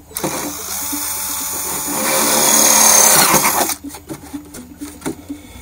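Cordless drill running as its bit bores a hole through the wall of a plastic sump basin, growing louder for about three and a half seconds before stopping. The holes are drain holes that let groundwater into the basin.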